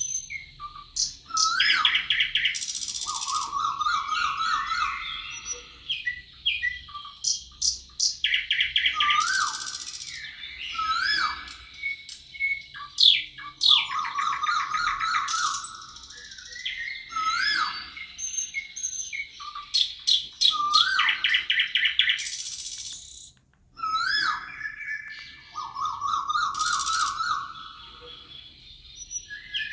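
Several songbirds singing in a forest chorus: repeated phrases of rising whistled notes, fast trills and high chirps, overlapping one another.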